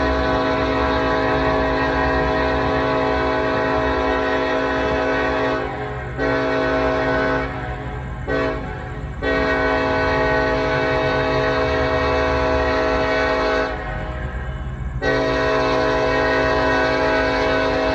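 Norfolk Southern freight locomotive's multi-chime air horn sounding a series of blasts: a long blast, a short one, a very brief toot, then two more long blasts. A steady low rumble from the train runs underneath.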